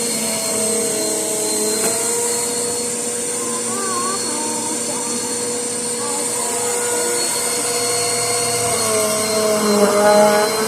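Vacuum cleaner running steadily: a constant motor hum with a thin high whine over a rushing of air.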